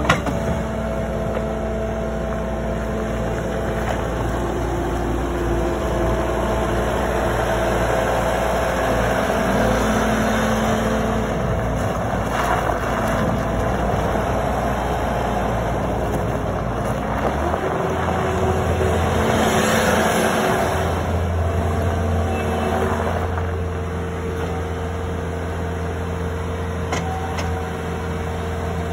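Caterpillar 262D skid-steer loader's diesel engine running steadily as the machine drives and turns, its engine note stepping up about two thirds of the way through.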